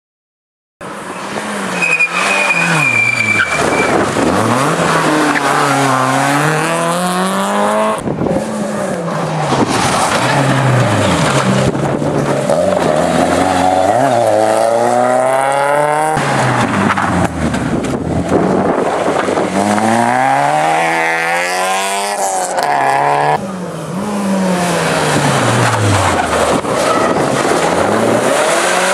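Small hatchback rally cars, Renault Clios among them, being driven hard: the engines rev up and drop again and again as they shift through the gears, with a brief high squeal early on. The sound jumps from car to car at several abrupt cuts.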